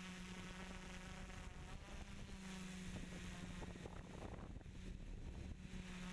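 Multirotor drone's electric motors and propellers buzzing steadily in flight, heard from the camera mounted on the drone; the buzz wavers and roughens for a moment in the middle as the drone turns.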